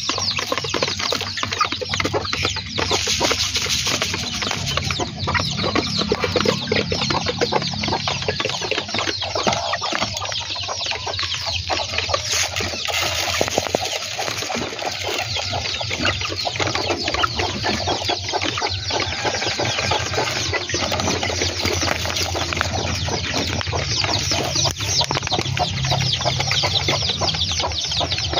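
A flock of kampung chickens clucking and calling continuously, with many short sharp sounds among them, over a steady low hum.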